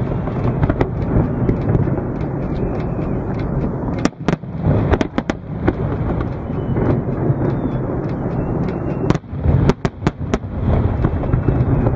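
Aerial fireworks shells bursting overhead in a continuous deep rumble of booms, with clusters of sharp cracks near the start, about four seconds in and about nine seconds in.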